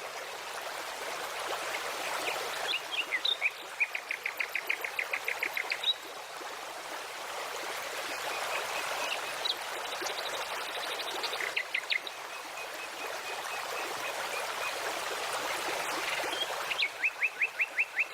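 Flowing water running steadily, with a small songbird singing rapid trills of about ten quick notes a second, in bursts about three seconds in, near twelve seconds and again near the end, with a few thin high whistles between.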